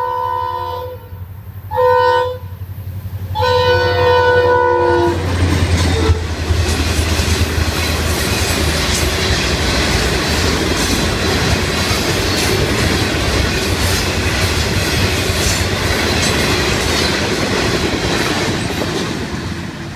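Florida East Coast freight locomotive's air horn giving a short blast and then a long one, the close of the long-long-short-long grade-crossing signal. The train then rolls past with the loud clickety-clack of hopper and tank car wheels over the rail joints, fading near the end.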